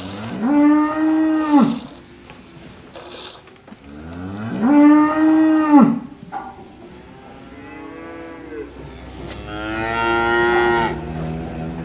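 Cows mooing: four long moos, each rising into a held call of about one and a half seconds. The first two are loud and the last two fainter.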